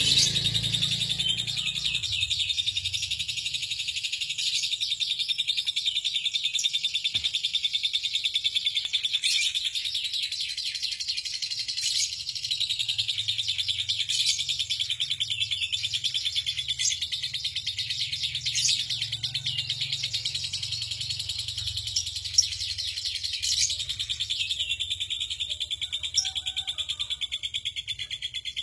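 Lovebird 'ngekek': one long, unbroken run of rapid, high chattering notes, with sharper chirps standing out above it now and then.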